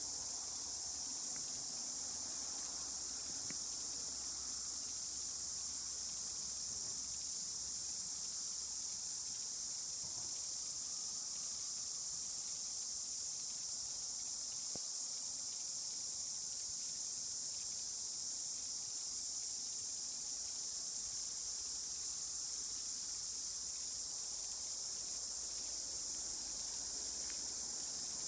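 Steady, high-pitched chorus of cicadas, unchanging throughout.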